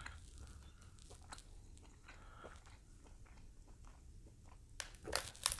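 Faint eating sounds: scattered clicks and crackles of grilled king crab legs being broken apart and eaten, with a louder cluster of cracks near the end.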